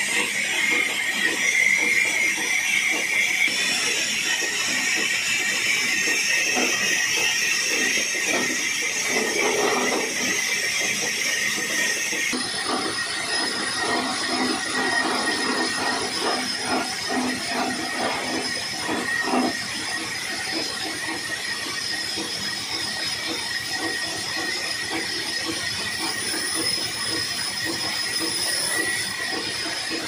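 Horizontal band sawmill running through a log: a steady high-pitched whine over a hiss. The sound changes abruptly about twelve seconds in.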